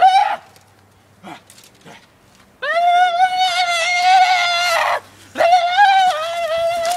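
Loud, high-pitched wordless yelling by a young person, held on one steady note like a battle cry. A brief shout comes right at the start, then two long cries: one of about two and a half seconds from near the middle, and another of about a second and a half just after it.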